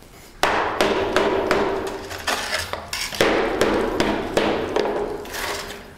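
A short-handled sledge hammer striking the ceramic shell mold on a cast bronze panel, starting about half a second in and going on at about two to three blows a second. Each blow breaks away some of the shell, which is brittle from the heat of the pour.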